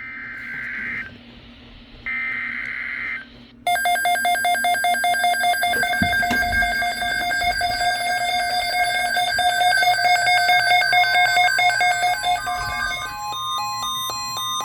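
Two short bursts of warbling digital data tone about a second apart: the end-of-message bursts of an Emergency Alert System broadcast. Then a loud, rapidly pulsing electronic alarm tune takes over, changing to stepping high notes near the end while a steady single tone comes in.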